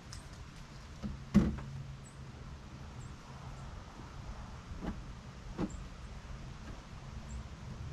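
Knocks and clicks of hands and shoes against a tilted truck cab while its painted back panel is wiped down, the loudest knock about a second and a half in and two lighter ones past the middle, over a low steady hum.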